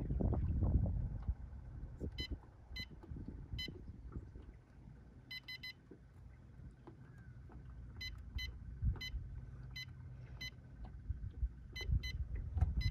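Humminbird Helix 10 fish finder beeping at each key press while its sonar menu settings are stepped through: about a dozen short, high beeps at uneven intervals, over a low steady hum, with a low rumble in the first second.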